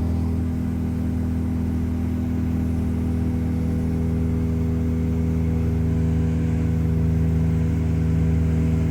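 Tour boat engine running steadily under way, a constant low drone heard from on board.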